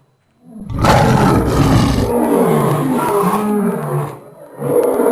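Deep, lion-like beast roar sound effect starting after a brief silence. Its first second carries a heavy low rumble, and it then runs on as a rough, wavering growl for about three seconds. A second roar begins near the end.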